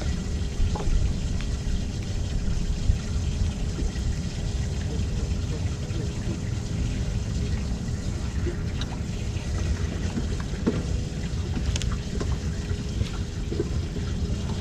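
Wind rumbling on the microphone, with a faint steady hum underneath and a few light ticks scattered through.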